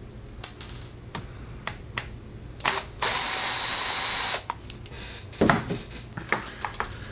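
Cordless drill with a T8 tamper-proof Torx bit running once for about a second and a half, backing a screw out of an Xbox 360 controller's plastic shell. Before and after it come scattered sharp clicks and knocks of the bit and controller being handled.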